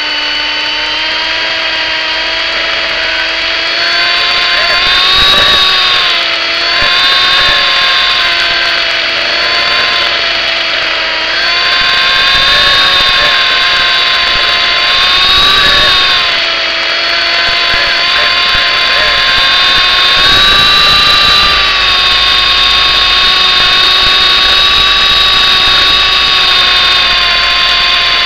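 Electric MJX F45 single-rotor RC helicopter running: a steady motor and gear whine with rotor noise, its pitch wavering up and down as the throttle changes.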